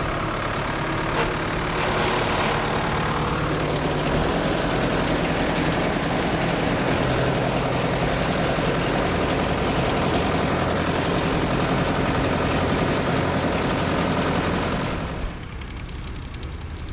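Ford 7700 tractor's six-cylinder diesel engine running steadily, the sound falling away sharply about fifteen seconds in.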